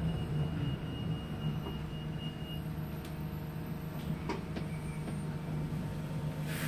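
Interior running noise of a Yutong electric single-decker bus: a steady low hum with a thin high whine for the first couple of seconds and a few light clicks and rattles around the middle.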